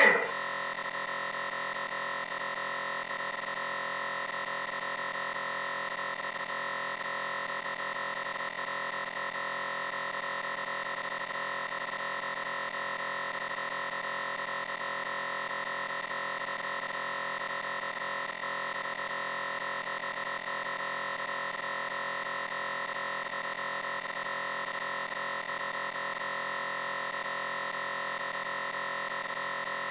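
Steady electronic drone made of many held tones stacked together, with no rhythm and no change in pitch or loudness.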